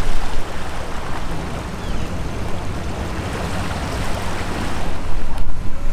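Steady rushing of water washing against a rocky shoreline, mixed with wind on the microphone.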